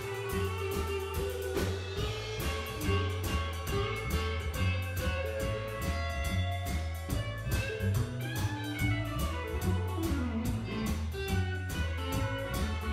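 Background music: an instrumental track with guitar over a steady drum beat and bass.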